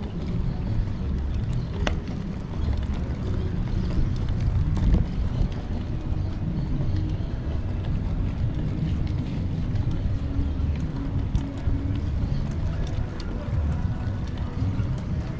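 Wind rumbling on the microphone of a camera riding on a moving bicycle, a steady low noise with faint road sounds over it.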